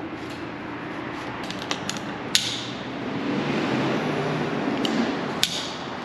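Rope handling: Prusik cord rustling as it is wrapped around the main rope, with a few sharp clicks of carabiner hardware, the loudest about two and a half seconds in and another near the end.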